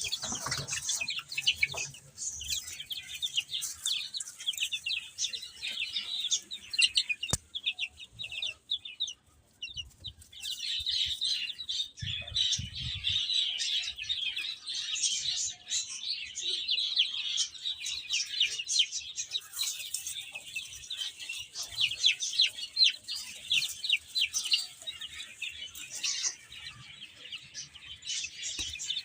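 Many baby chicks peeping continuously in a rapid high-pitched chorus, easing off briefly about a third of the way in before picking up again.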